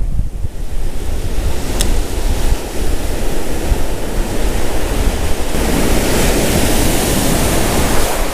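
Ocean surf washing in around the angler's legs, with wind buffeting the microphone as a low rumble. A wave's whitewater rushes in louder from about five and a half seconds in, and there is one brief click near two seconds in.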